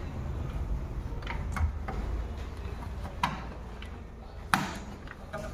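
Irregular sharp clicks and knocks, about six of them and the loudest near the end, from tools and parts being handled during air-conditioner servicing, over a steady low hum.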